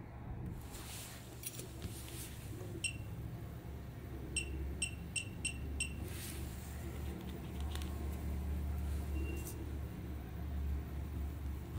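Short high electronic beeps, one and then a quick run of five, over a steady low hum and some rustling handling noise.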